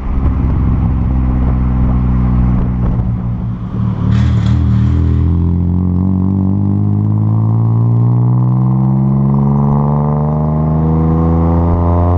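Renault Kwid's small three-cylinder engine through a full aftermarket exhaust, pulling under acceleration. The revs drop at a gear change right at the start and again about four seconds in, then climb steadily through the gear.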